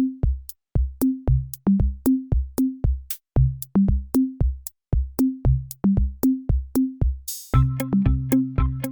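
Electronic music: a drum-machine beat of short, pitched bass-drum hits, about three a second, with the pitch of the thumps stepping up and down. About seven and a half seconds in, a cymbal-like swell leads into a fuller section with added synth notes.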